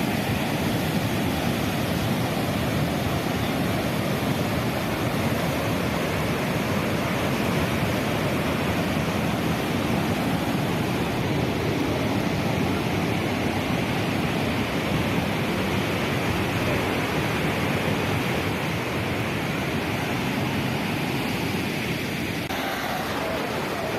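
Steady rushing noise of the Parvati River in full flood, fast muddy water running high in its channel.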